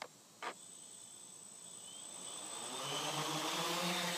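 Two short clicks, then a quadcopter's motors and propellers spinning up, the whine and buzz growing louder over about three seconds as it lifts off the grass and settling into a steady hover.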